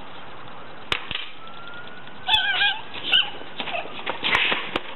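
A boy being tickled lets out short, high-pitched squeals, two quick cries in the middle and a noisier burst near the end. Several sharp clicks from the scuffle come in between.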